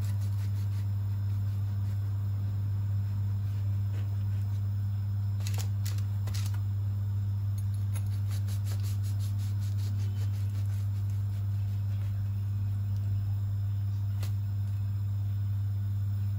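A steady low hum, with a few faint clicks and taps about six seconds in and once more near the end.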